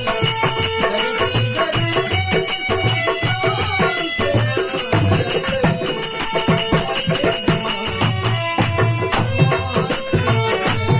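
Folk-style music with a steady drum beat under a held, pitched melody, without singing.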